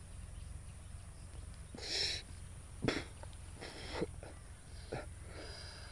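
A man taking about five sharp, hissing breaths in through the mouth, drawing in smoke; the longest and loudest comes about two seconds in.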